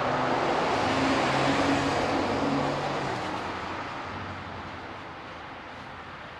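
A vehicle passing by on the road, loudest about a second and a half in, with a low engine hum in the first three seconds, then fading away.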